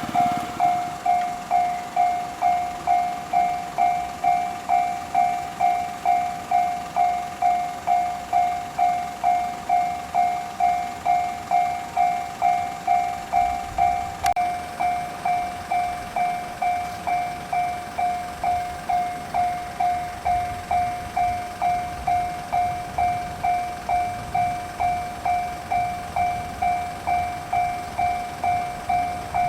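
Japanese railway level-crossing warning bell on the JR Hanwa Line, ringing its electronic 'kan-kan' tone in even strikes just under twice a second, signalling that a train is approaching. A faint low rumble of the train builds underneath in the second half.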